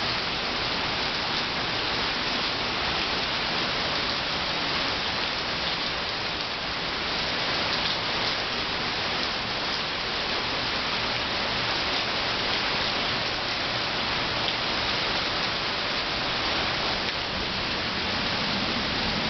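Steady rain falling on a wet stone-paved courtyard and garden foliage, an even hiss with a few faint drip ticks.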